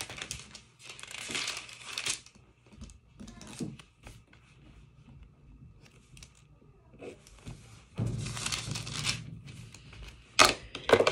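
Paper pages being turned and rustling in several short bursts, with quiet gaps between them, the longest gap in the middle.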